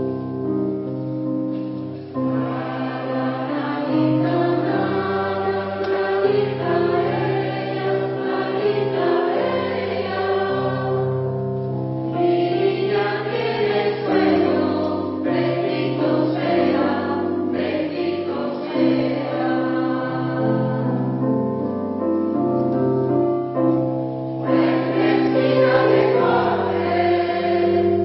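Polyphonic choir singing, several voice parts moving together over long held low notes.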